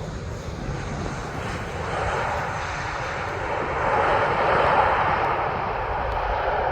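Boeing 737 MAX jet airliner on landing approach, its CFM LEAP-1B engines a steady rushing sound that swells from about two seconds in and is loudest around the middle.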